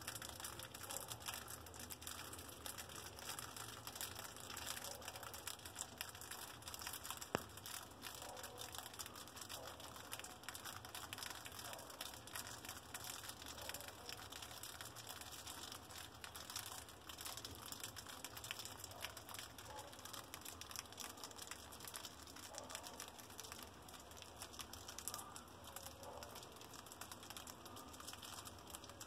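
Mice scurrying and rustling through dry leaf and paper bedding: a faint, continuous crackle of tiny scratches and crinkles, with one sharp click about seven seconds in.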